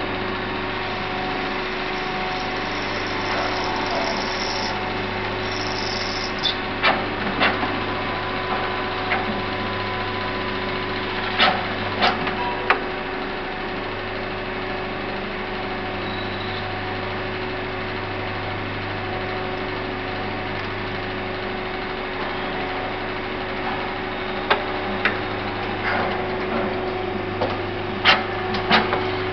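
Tornos Bechler ENC 16 CNC automatic lathe running with a steady mechanical hum and a constant tone. Sharp metallic clicks and knocks come about 7 and 12 seconds in, and in a cluster near the end.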